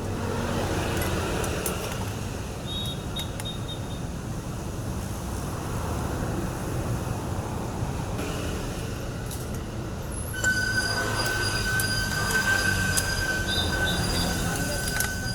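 A steady mechanical drone, joined about ten seconds in by a louder, steady high-pitched squeal.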